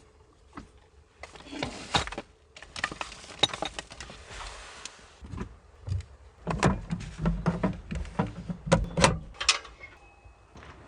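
Rustling, then a run of knocks and clunks from objects being handled and set down, with a few heavier low thuds in the second half.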